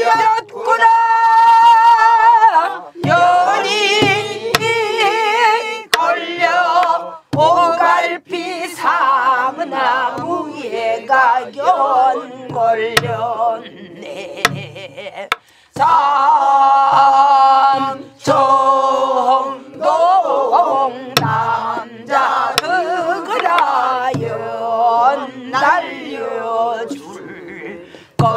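Singing of a Namdo (southwestern Korean) folk song, led by a woman, with wide, shaking vibrato on long held notes. Low, deep strokes of buk barrel drums beat out the rhythm.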